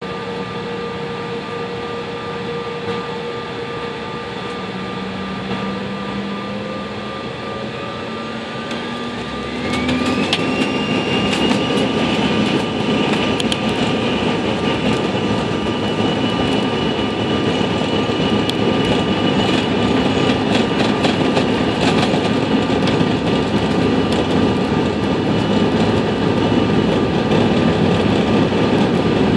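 CRJ-900 jet engines heard from inside the cabin, with a steady whine at low power. About eight seconds in, a whine rises sharply in pitch as the engines spool up to take-off thrust, and the noise jumps to a loud steady roar for the take-off roll, with scattered small knocks and rattles.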